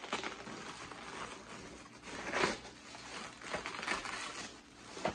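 Packaging crinkling and rustling as it is handled, in irregular bursts, with the loudest crinkle about two and a half seconds in.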